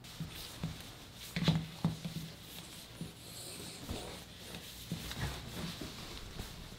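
A cat scrambling about under a quilted blanket on a laminate floor: irregular pattering and scuffing of paws with light knocks, the loudest about a second and a half in, and the blanket rustling.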